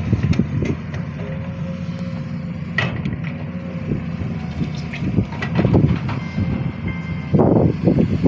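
Sany SY215C excavator running with a steady low engine drone, with scattered clanks and knocks over it; the loudest comes near the end.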